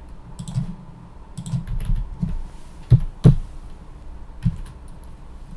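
Typing on a computer keyboard: a short run of irregular keystrokes, with two louder clacks about three seconds in and another a little later.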